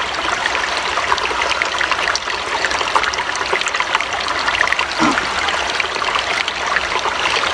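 Steady trickling of running water, like a small stream, with small clicks and handling noises over it.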